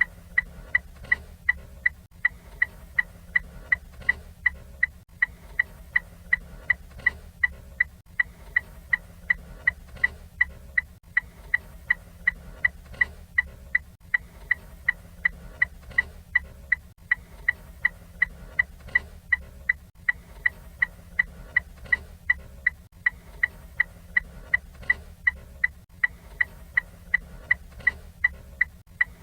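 Ford Fiesta turn-signal indicator ticking steadily, a little over two sharp electronic clicks a second, with a steady low hum underneath.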